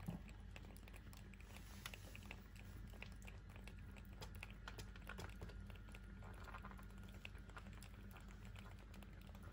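Faint, irregular clicking and tapping from live European lobsters, their shells and legs knocking against each other and the container, over a low steady hum.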